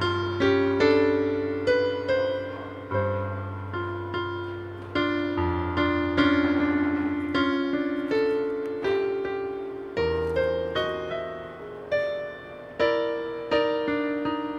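Background piano music: a melody of struck notes, each fading away, over held low bass notes.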